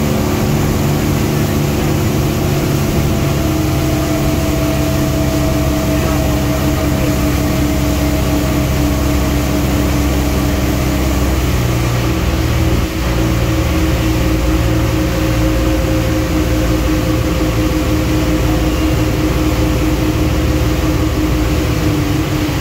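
Boat engine running steadily under way, its pitch drifting slowly lower.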